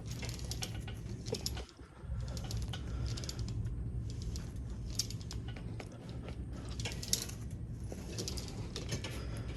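Wrist-wrench handle worked through repeated reps against resistance: its metal attachment hardware clinks and rattles in a cluster of clicks every second or so, over a steady low hum.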